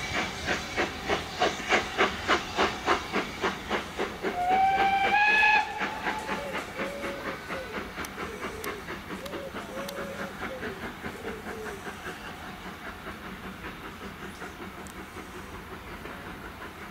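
Steam locomotive working hard as it pulls a train away, its exhaust beating about three times a second, then quickening and fading into the distance. About four seconds in, its whistle sounds for about a second, rising in pitch and then holding, the loudest sound here.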